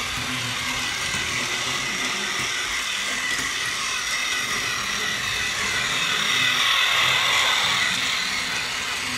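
Battery-powered Plarail Ryan toy train's small electric motor and gearbox whirring steadily as it runs around plastic track. It grows louder from about six to eight seconds in as the train passes close.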